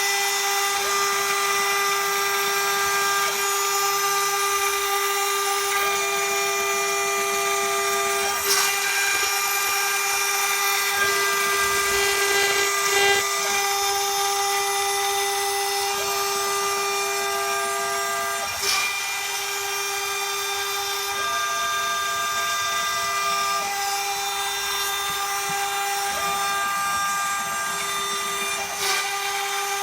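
Homemade CNC router milling aluminium: the spindle gives a steady high-pitched whine, and a second tone switches on and off every few seconds as the machine moves. Three brief sharp noises come about ten seconds apart.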